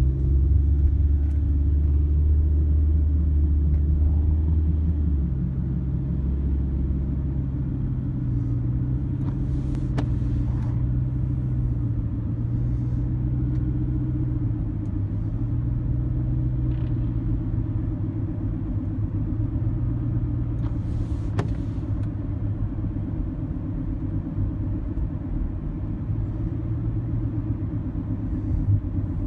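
Car interior driving noise: a steady low engine and road rumble. The engine note shifts higher about five seconds in, and there are a couple of faint clicks.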